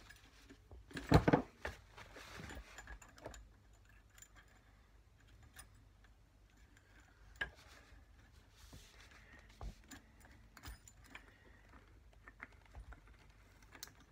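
A rag rubbing along a chrome fork stanchion, with small clicks and knocks of metal parts being handled on a workbench. One louder knock comes about a second in.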